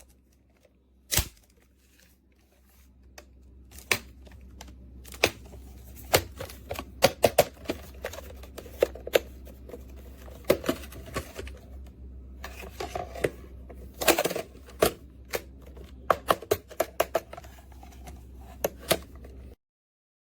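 Irregular sharp clicks and light knocks from handling a Master Lock 5900D portable lock box, its combination dials being turned and its latch worked. The clicks come in busy clusters and the sound cuts off abruptly shortly before the end.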